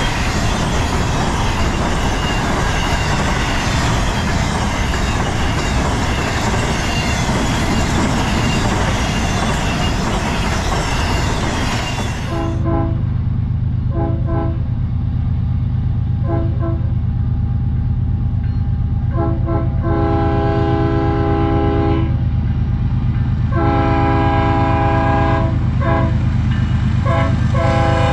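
A loud, steady rushing noise, then an abrupt change about twelve seconds in to a BNSF diesel locomotive's multi-chime air horn. The horn sounds a few short blasts, then long and short blasts, over the low steady rumble of the locomotive.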